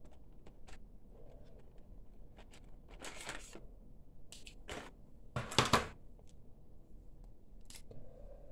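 Light clicks and rustling from handling fineliner pens and their clear plastic case, with a louder clatter about five and a half seconds in.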